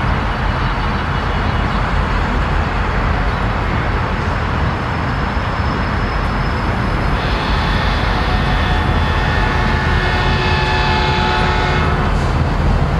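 Union Pacific EMD GP-series diesel locomotive engines running with a steady low rumble while switching cars. About seven seconds in, a steady high whine of several tones sets in on top and stops about five seconds later.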